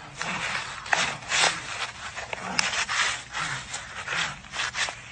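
A man choking on chewing gum, making repeated rasping gasps and gagging sounds.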